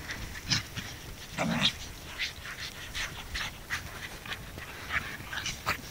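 Australian Shepherd and Parson Russell Terrier dogs panting and scuffling as they romp in snow, with many short breathy rustles coming irregularly and one stronger, lower sound about a second and a half in.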